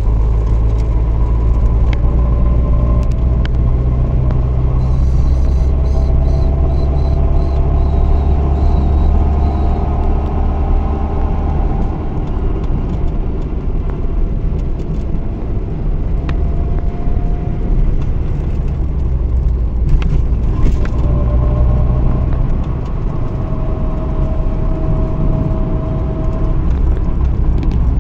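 A car driving on a highway, heard from inside the cabin: a steady low rumble of engine and tyres on the road, with a faint whine that drifts slowly up in pitch a couple of times.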